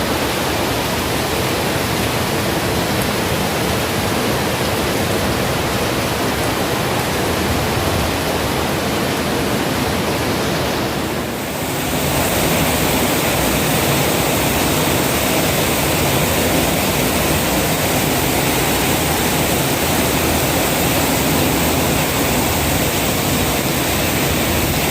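Heavy rain and strong wind of a thunderstorm, a loud, steady rushing noise. It dips briefly about eleven seconds in, then comes back as strong as before.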